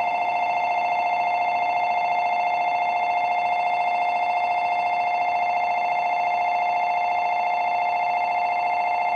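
Electronic station departure bell ringing steadily on the platform: a fast, even, warbling two-tone ring. It signals that the train is about to leave and its doors will close.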